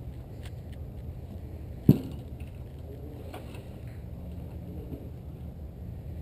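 Golf clubs knocking together in a golf bag as a club is drawn and handled, with one sharp knock about two seconds in and a few faint clicks, over a steady low rumble.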